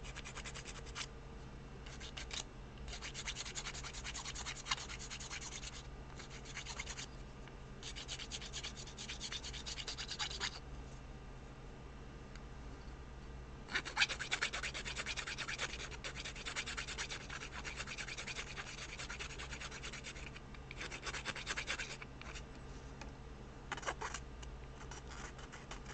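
Hand file rasping across a resin 3D print in bursts of quick strokes with short pauses, smoothing off support marks and surface imperfections.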